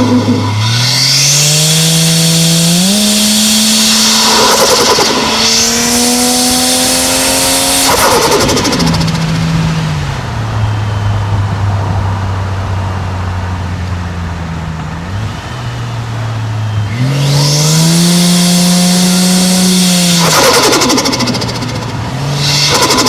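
Turbocharged Toyota 1JZ-GTE inline-six pulling hard twice, its note rising under throttle; each time the throttle lifts, about eight seconds in and again near the end, there is a burst of turbo flutter hiss as the revs drop. Between the pulls the engine runs at low revs off the throttle.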